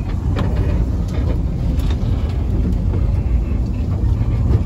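Rumble of a miniature-railway passenger carriage rolling slowly along the track as the train pulls out of the station, heard from inside the carriage, with scattered clicks and knocks from the wheels and coach.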